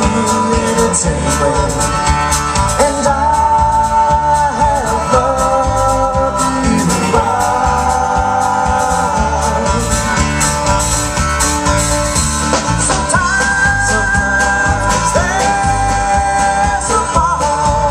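Live band playing amplified music: guitars, drums and keyboard over a steady beat, with long held lead notes that bend in pitch.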